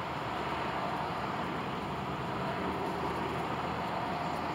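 Steady hum of road traffic from a nearby busy road.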